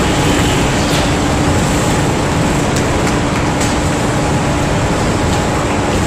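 Go-kart engines running as several karts pass one after another on an indoor track, a loud steady din without letup.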